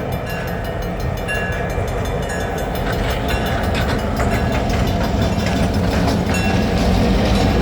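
Mass Central freight train led by two diesel locomotives, running past with a rapid clicking of steel wheels over the rails, growing steadily louder.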